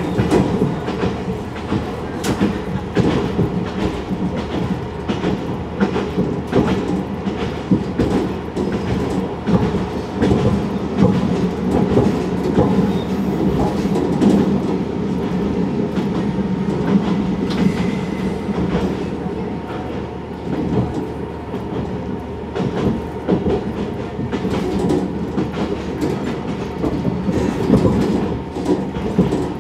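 Diesel railcar running along the line, heard from inside the car: a steady engine and running drone with the wheels clicking over rail joints.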